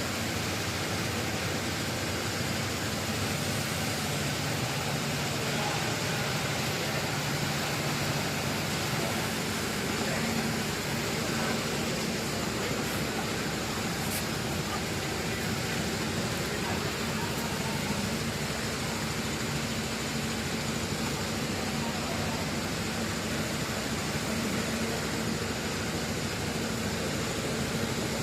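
Richpeace automatic industrial sewing machine for mattress protectors running steadily, giving a continuous mechanical whir and hum with no pauses.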